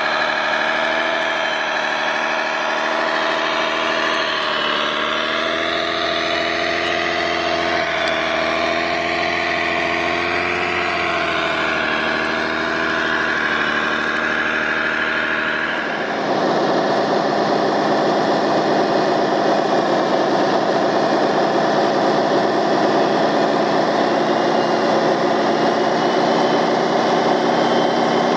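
Radio-controlled model construction vehicles running, a steady engine-like drone whose pitch drifts up and down with the throttle. About sixteen seconds in it changes abruptly to a different, denser and steadier engine sound.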